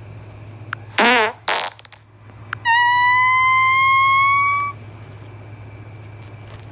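Fart sounds: a short wobbling one about a second in, a brief puff right after, then a long high squeaky one lasting about two seconds and rising slightly in pitch.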